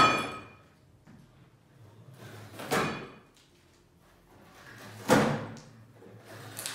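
A caracal ripping a cardboard box with its teeth: loud tearing rips, one about every two to three seconds, with quieter gaps between.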